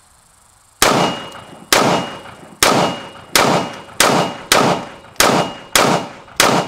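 Nine rapid semi-automatic shots from a 7.5-inch-barrel AR-15, fired at an even pace of about one every two-thirds of a second and starting about a second in. Each hit on the steel armor plate leaves a brief high ring.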